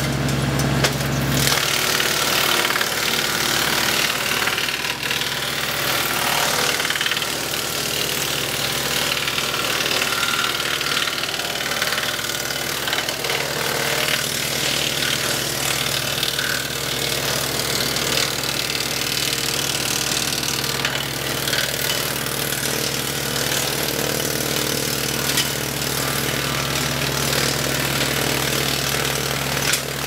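OXXN OX-8100 PTO-driven wood chipper, with hydraulic feed rollers, chewing steadily through branches and a leafy limb while the tractor engine runs under load. The steady engine hum fades about a second and a half in as the chipping noise takes over, and comes back near the end.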